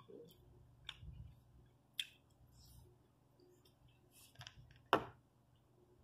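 Quiet eating sounds: a few scattered clicks and taps of a plastic fork working fried rice in a foam takeout container, along with mouth sounds of eating; the sharpest click comes about five seconds in.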